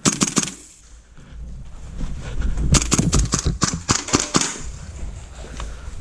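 Airsoft guns firing: a quick burst of sharp shots right at the start, then a longer run of rapid shots in the middle, over a low rumble of movement on the microphone.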